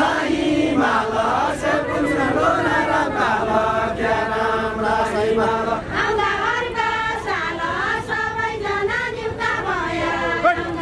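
A group of voices singing a Deuda folk song together in a repetitive, chant-like melody, with no instruments.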